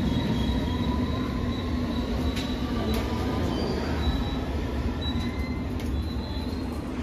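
London Underground S-stock train pulling into the platform and slowing to a stop: a steady rumble with faint high-pitched squeals from the wheels, easing a little near the end.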